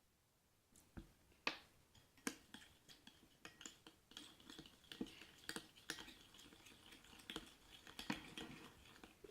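Spoon working glue-and-borax slime in a bowl as it thickens into a gel: faint, irregular light clicks and taps, starting about a second in.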